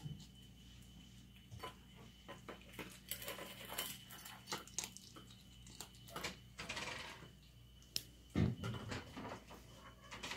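Skunks eating dry kibble from a stainless steel bowl: faint, scattered clicks and clinks of the food and the metal bowl, with one dull thump near the end.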